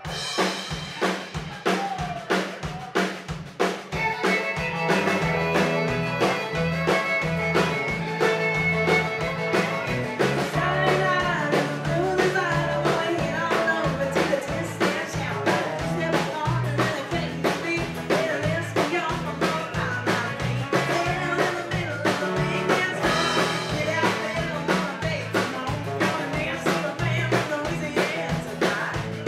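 Live country band striking up a song, coming in suddenly with drum kit, bass, electric and acoustic guitars and fiddle, growing fuller about four seconds in.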